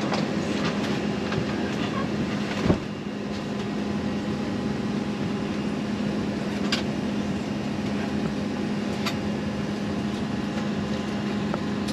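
Steady cabin air-conditioning hum inside an Embraer ERJ-145 regional jet, with a low drone. A single sharp knock comes about three seconds in, and a few faint clicks follow later.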